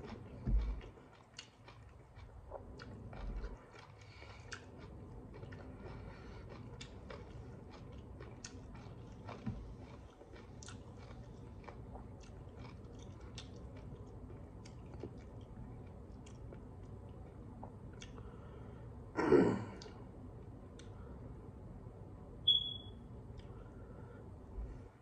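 Close-up chewing and lip-smacking of a person eating rice and fish with their fingers, with many small wet mouth clicks. A brief louder sound comes from the eater about nineteen seconds in, and a short high squeak a few seconds later.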